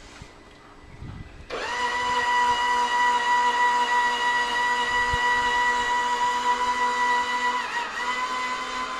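Electric motor starting abruptly about a second and a half in and running with a steady, high whine, dipping briefly in pitch near the end before carrying on.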